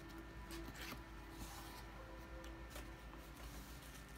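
Faint rustling and scraping of a cardboard speaker box as its top flaps are pulled open.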